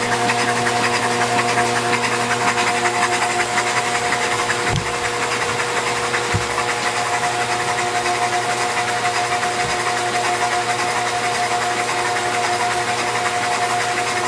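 Rebuilt Audi S4 V6, bored and stroked to nearly 3 litres, being turned over steadily on an engine Simtester run-in machine for break-in. It makes a steady machine whine with several held tones and a fast, even valvetrain clatter. A couple of soft low thumps come about a third and halfway through.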